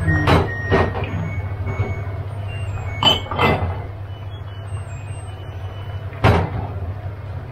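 Sharp knocks and clinks of cooking utensils against a pot, five in all: two close pairs and one alone, over a steady low hum.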